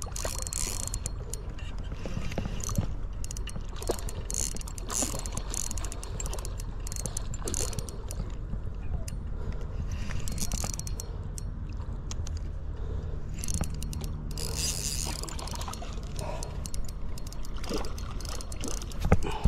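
Spinning reel being cranked against a hooked carp, its gears whirring and clicking in repeated spells.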